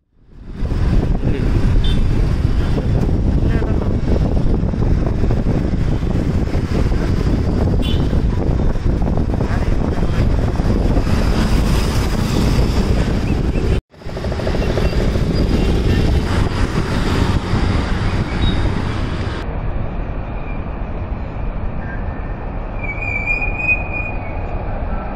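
Wind rush on the microphone and road noise from riding a motorbike or scooter through city traffic, a dense steady rumble. It breaks off for an instant about halfway and turns duller and a little quieter about two-thirds of the way through.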